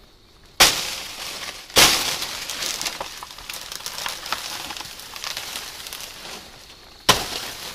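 Machete chopping into a banana plant's stalk to bring down a bunch of bananas: a sharp strike about half a second in and another about a second later, then a long crackling rustle of large banana leaves as the plant comes down, and a third strike near the end.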